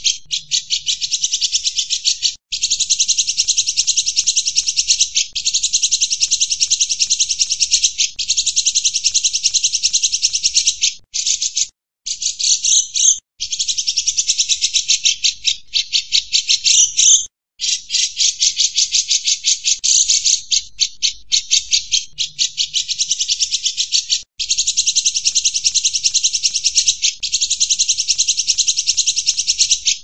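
Cucak jenggot (grey-cheeked bulbul) calling in a fast, high-pitched rattling chatter, in runs of a few seconds broken by short pauses.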